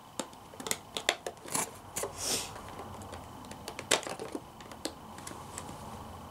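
Hands working at a boxed toy figure's plastic packaging: scattered sharp clicks and snips, a brief crinkling rustle about two seconds in, and a louder click about four seconds in.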